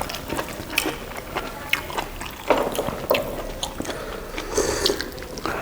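Wet chewing and mouth sounds from people eating cooked buffalo innards: a scatter of short clicks, smacks and squelches.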